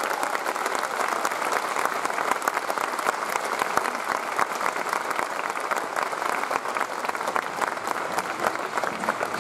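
Audience applause: many hands clapping together in a dense, steady patter after the end of a choir song.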